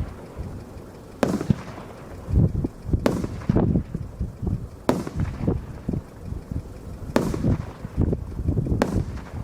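Consumer firework battery (cake) firing shot after shot: a sharp bang about every two seconds, five in all, each trailed by low rumbling booms.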